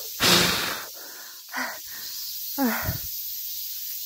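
A hard puff of breath blown close to the microphone, about half a second long, to push a spider hanging on its silk thread. It is followed by two short voiced breaths, the second falling in pitch.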